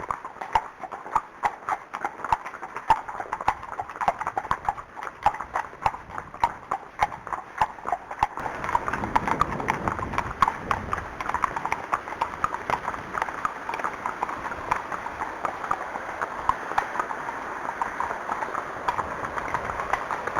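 Hooves of an unshod Arabian horse clip-clopping in a steady walking rhythm. About eight seconds in, a steady rushing of wind noise rises under the hoofbeats.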